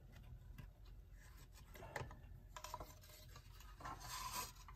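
Faint handling noises from an electric mantle clock opened on a work table: light rubbing and scraping with a few small clicks.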